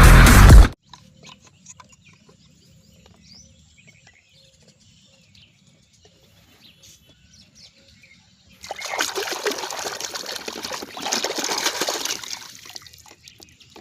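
Water splashing and trickling for about four seconds, in the second half, after a short burst of loud music cuts off at the very start.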